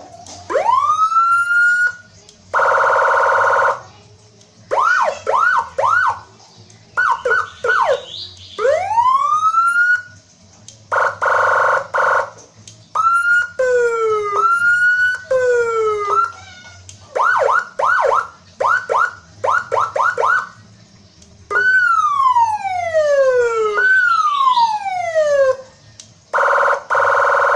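Electronic police-escort siren with a double tone, switching through its modes. It gives rising whoops, fast rapid yelps, short blasts of a harsh steady horn-like buzz (three times) and long falling sweeps. Each pattern runs for a second or two before the next begins.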